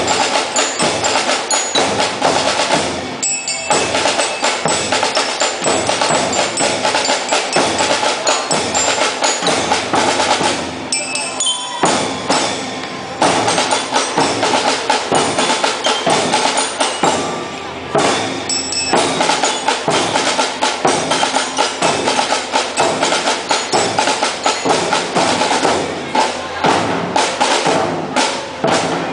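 Marching band playing, its percussion section driving a fast, dense rhythm of drum strokes, breaking off briefly a few times.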